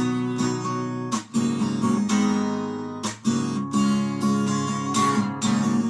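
Acoustic guitar strumming chords in an instrumental break between sung verses, with sharp strums about every second and chords ringing between them.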